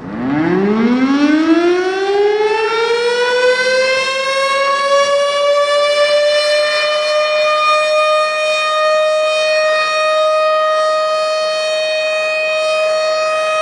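Civil defense siren starting out of silence and winding up from a low growl to a high, steady wail over about six seconds, then holding that one pitch, sounding as an attack warning.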